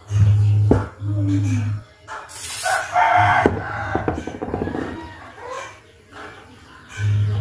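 A rooster crowing about three seconds in, over a low steady hum that runs for nearly two seconds at the start and comes back briefly near the end. A short hiss of an aerosol spray can comes just before the crow.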